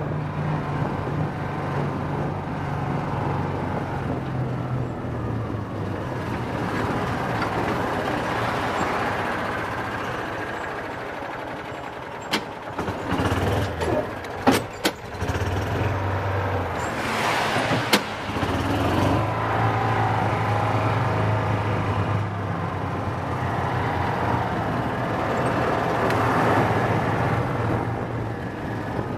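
Gator utility vehicle engine running as it is driven, its note rising and falling with speed. About twelve seconds in it drops to a low idle while a few sharp clicks and knocks sound, then it picks up again.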